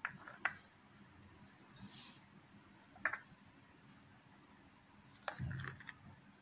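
Faint handling noises on a tabletop: a few light clicks and knocks, and a brief rustle about five seconds in.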